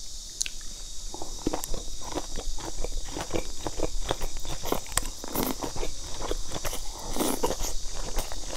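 Close-miked chewing and lip smacking of spicy wide starch noodles and sausage: a steady run of short wet clicks and smacks, with a couple of longer, noisier smacks about five and seven seconds in.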